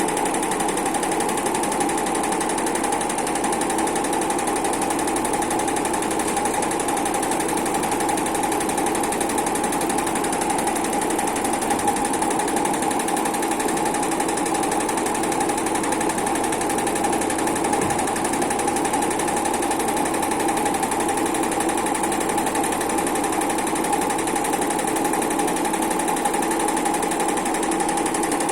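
Heating-wire sewing machine running steadily, a continuous mechanical stitching chatter with a steady hum under it.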